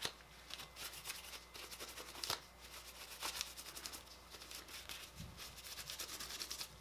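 Faint rustling and rubbing of a paper towel twisted inside an AR-15 bolt carrier, with a few light clicks of the metal parts in gloved hands.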